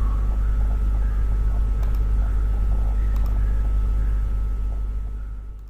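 A steady low rumbling hum with two faint clicks about two and three seconds in; the hum fades out near the end.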